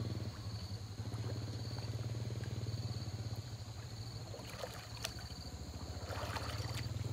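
A small engine running steadily, a low pulsing drone, under the steady high whine of insects; water sloshes and splashes about six seconds in as a person wades through a pond.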